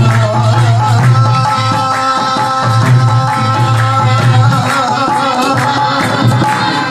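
Devotional song: a man singing over a harmonium's sustained chords, with a dholak drum keeping a steady beat.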